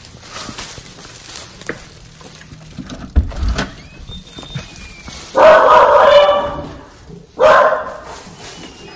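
Pet dogs barking in two loud bouts, the first lasting about a second, the second shorter, after a low thud about three seconds in.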